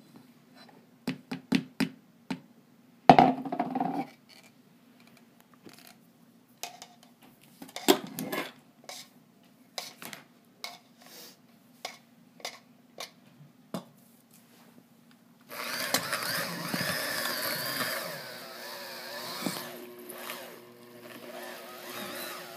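Knocks and clatter of ingredients and containers against a stainless steel bowl, then, about two-thirds of the way through, an electric hand mixer starts and whirs steadily, its beaters churning cream cheese, butter and caramel for frosting in the steel bowl.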